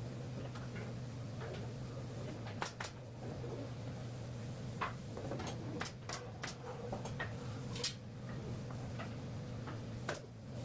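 Scattered light knocks and clicks at irregular intervals, about eight in all, over a steady low hum.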